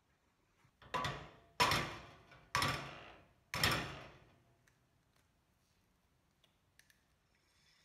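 An egg knocked four times against the rim of a frying pan to crack it, each knock ringing briefly and dying away. Near the end the egg drops into the hot pan and starts to sizzle faintly.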